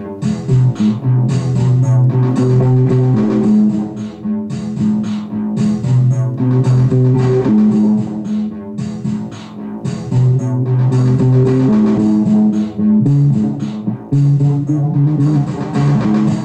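Music with guitar and bass guitar: a bass line of held low notes alternating between two pitches, the pattern coming round about every four seconds.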